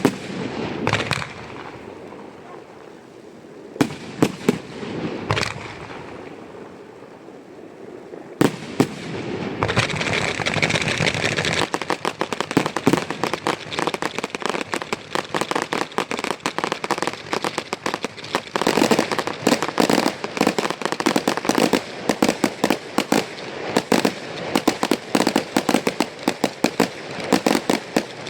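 Aerial fireworks display. A few separate loud bangs of shells bursting in the first nine seconds, then from about ten seconds in a dense, continuous crackle of rapid reports that thickens into a fast volley of bangs.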